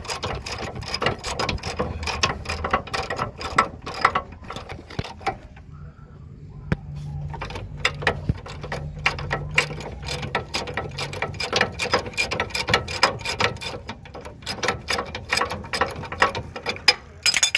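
Hand ratchet wrench clicking rapidly as it runs a 17 mm nut off a lower control arm bolt, with a short pause about five seconds in.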